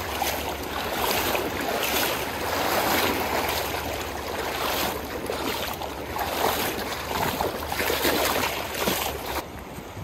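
Feet wading through a shallow, fast-flowing river, splashing step after step in a steady rhythm a little faster than one a second, over the rush of the current.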